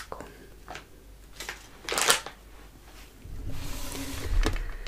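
Objects being handled close to the microphone: scattered clicks and a sharp knock about two seconds in, then a longer rustle with low bumps over the last second and a half.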